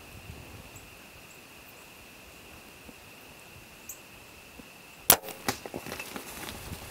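Compound bow shot at a whitetail buck: one sharp, loud crack about five seconds in, followed by a run of smaller snaps and rustles of brush for over a second.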